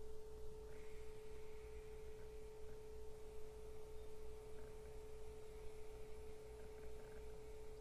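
Steady electrical whine at one unchanging pitch, a fault in the recording. A faint airy hiss joins it about a second in for a couple of seconds as a person draws on an e-cigarette.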